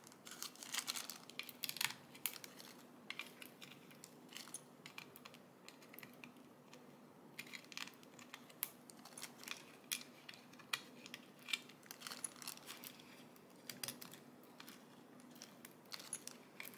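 Faint crinkling of a small clear plastic zip-lock bag handled by hand, with scattered light clicks, as flower-shaped diamond-painting special drills are taken off a plastic tray and put into the bag.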